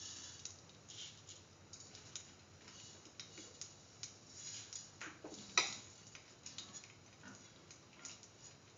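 Mustard seeds heating in hot oil in a stainless steel pan, with scattered small crackles and ticks as they begin to pop. One louder click comes about five and a half seconds in.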